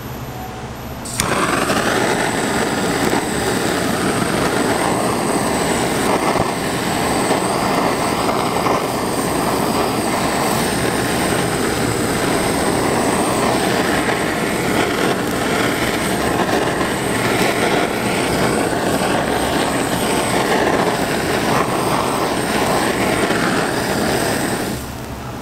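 Handheld kitchen blowtorch lit about a second in, then the steady hiss of its flame. It shuts off near the end.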